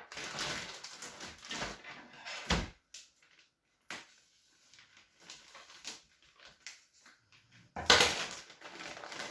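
Cardboard jigsaw puzzle pieces rustling and clicking as they are handled in the box, with a sharp knock about two and a half seconds in, a quieter stretch of small clicks, and another burst of rustling near the end.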